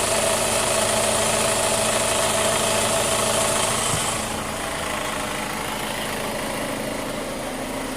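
2005 Chevy Cobalt's 2.2-litre four-cylinder engine idling steadily, with a mechanical noise the owner traces to the top of the engine at the camshafts rather than the bottom end. The sound gets quieter and duller about four seconds in.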